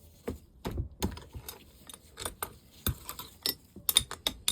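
Metal engine parts and hand tools clinking and knocking as they are handled during an engine strip-down: a string of short, irregular clicks and taps, coming faster near the end.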